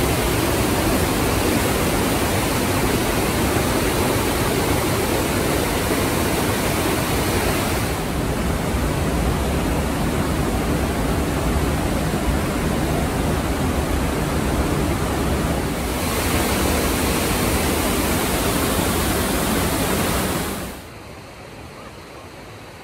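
Whitewater of the Partnach river rushing through a narrow rock gorge: a loud, steady rush of water. It is duller in the middle stretch, then drops abruptly to a much quieter, gentler flow near the end.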